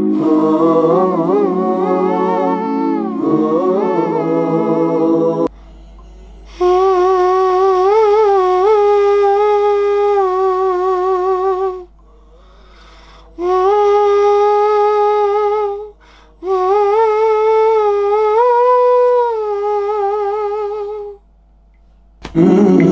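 A man's overdubbed a cappella voices in stacked harmony for about five seconds. Then a single wordless lead melody, hummed, in three phrases with short pauses between them. The layered harmony comes back just before the end.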